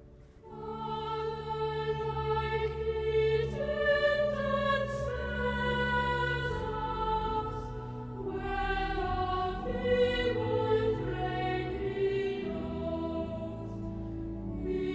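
Church choir singing a slow piece in held chords, coming in just after the start.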